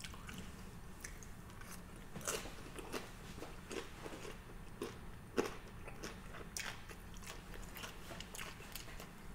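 A person chewing food close to the microphone, with irregular wet mouth clicks and smacks.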